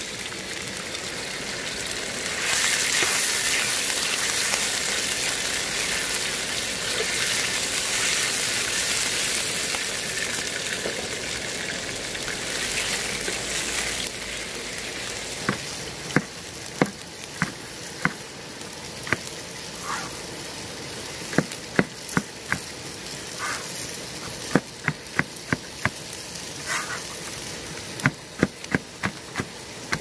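Sliced meat sizzling in a hot wok over a wood fire, loud for the first half and dying down after about 14 seconds. Then a knife chopping green onions on a cutting board: sharp knocks at uneven intervals, coming in quicker runs near the end.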